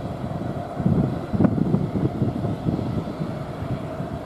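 Boeing 737 airliner taxiing, its jet engines giving a steady low rumble with a faint steady hum. Gusts of wind buffet the microphone, strongest a little over a second in.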